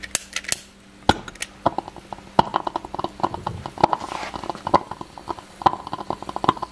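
Calcium carbide reacting on ice in a glass beaker: a few sharp clicks near the start, then fast, irregular crackling and popping as the carbide gives off acetylene and the gas burns in small flames among the ice.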